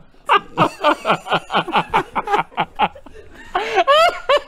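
A man laughing hard in quick rhythmic bursts, breaking into high-pitched squeals near the end.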